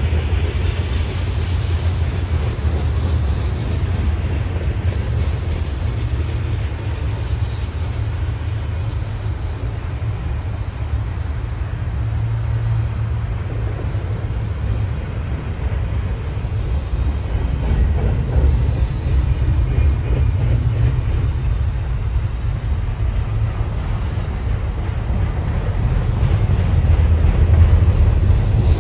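Freight train cars rolling past at close range: covered hoppers, then double-stack container well cars, a steady low rumble on the rails.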